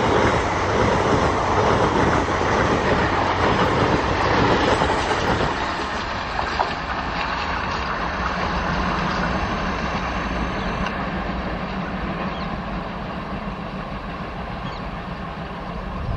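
Passenger coaches of a diesel-hauled express rolling past, their wheels clattering on the rails, the rumble thinning out after about five seconds and fading steadily as the train draws away, leaving a steady low drone.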